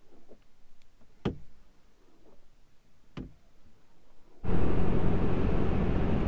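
A few sharp knocks of a windshield scrubber against the glass, heard from inside the pickup's cab. About four and a half seconds in, a loud, steady drone of engine and tyre noise starts inside the cab of the pickup truck driving at highway speed.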